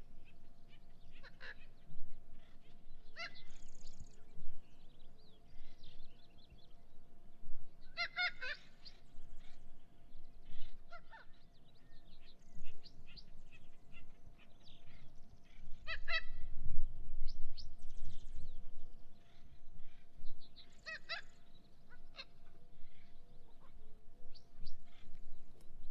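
A flock of parrots calling: loud, harsh squawks every few seconds over quieter chirps and chatter.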